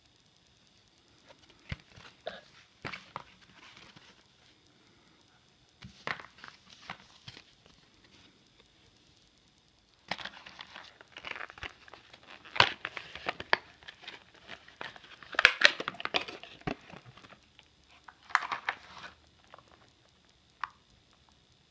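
Clear plastic blister packaging being handled and torn open by hand, crinkling and crackling in scattered bursts that grow dense and loud through the middle, then a single sharp click near the end.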